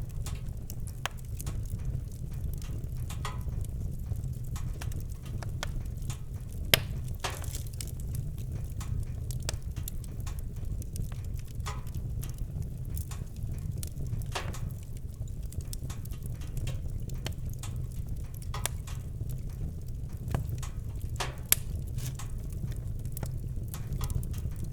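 Campfire crackling, with scattered sharp pops over a steady low rumble; two pops, about 7 s and 21 s in, are louder than the rest.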